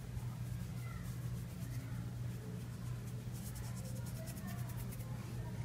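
Faint scratchy rubbing of a hand spreading dry flour over a ghee-coated, thinly rolled dough sheet on a wooden board, over a steady low hum.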